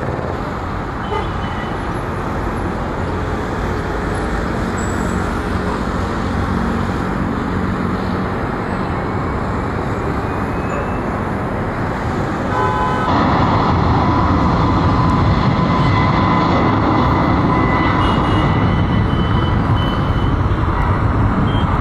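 Jet engines of an Airbus A320neo airliner running as it taxis, a steady rumble and hiss. About two-thirds of the way through the sound abruptly gets louder, with a steady whine over the rumble.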